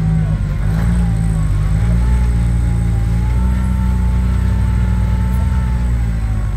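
Rock crawler buggy's engine running steadily at low revs as it crawls over a rock obstacle. From about two seconds in, a thin whine sits over the low drone.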